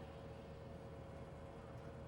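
Faint bowling alley room tone: steady background noise with a constant hum, and no distinct pin crash or ball roll.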